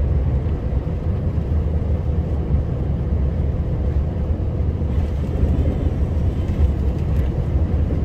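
Heavy snowplow truck heard from inside the cab while driving through snow: a steady, low engine and drivetrain rumble.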